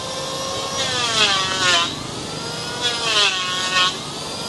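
Electric hand planer running, its motor whine dropping in pitch twice as the blade bites into the wood, with a rasping hiss of shaving on each pass.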